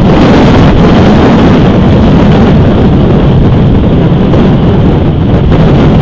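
Wind buffeting an outdoor camera's microphone: a loud, steady, deep rushing noise with no break.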